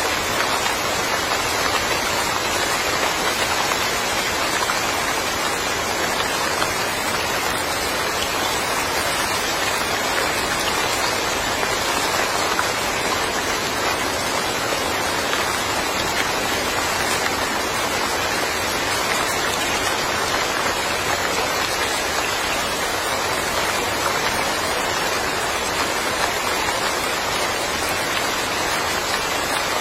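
Steady, even rain falling on a small yard, a dense unbroken hiss of drops without distinct single impacts.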